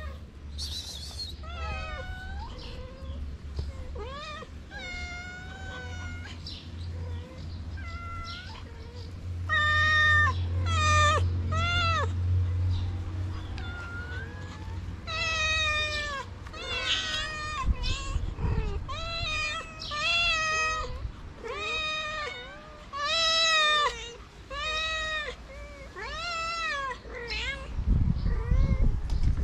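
Street cats and kittens meowing over and over, high-pitched rising-and-falling calls about one a second, with a faint low rumble underneath.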